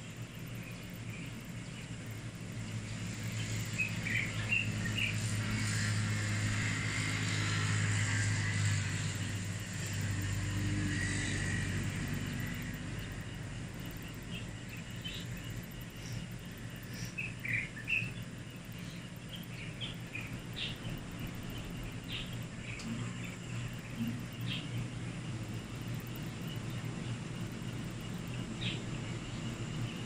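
Outdoor ambience with a steady low hum. A motor vehicle's engine swells and fades over several seconds in the first half as it passes, and short bird chirps come here and there.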